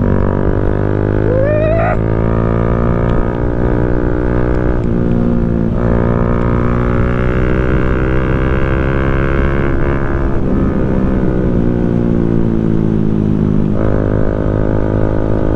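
Bajaj Pulsar motorcycle with an aftermarket exhaust running on the move, a steady engine note whose pitch drifts and shifts abruptly several times. A short rising whine sounds about a second and a half in.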